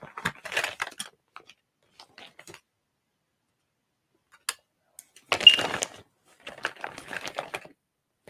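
Makeup items being handled on a desk: scattered light clicks and rattles as they are picked up and put down, with a louder clattering rustle about five seconds in.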